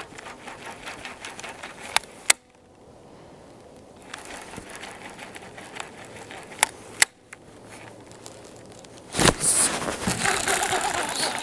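Fishing reel being cranked to retrieve a lure, with a few sharp clicks along the way. About nine seconds in it turns suddenly much louder as the rod is swept up and the reel is wound hard against a hooked bass.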